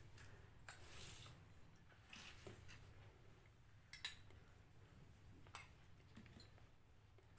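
Faint rustling and a few light clicks as cookies are handled and rolled in powdered sugar in a dish, the sharpest click about four seconds in.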